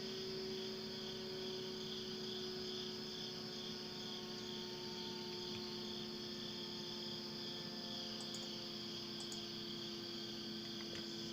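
Klaxon CS8 siren holding one steady note at a distance, its pitch sagging slightly, with crickets chirping throughout.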